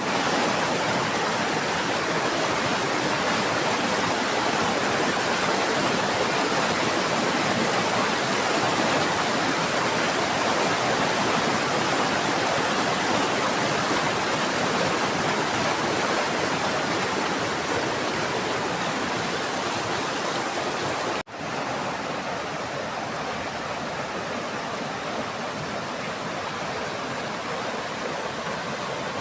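Steady rush of flowing river water. A sudden brief drop-out about three-quarters of the way through, after which the rush is slightly quieter.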